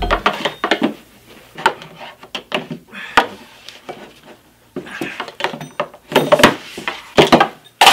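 Irregular clicks and knocks of hard plastic on a tabletop as a red mechanical kitchen timer is clumsily handled with oversized fake hands, coming thicker and louder in the second half.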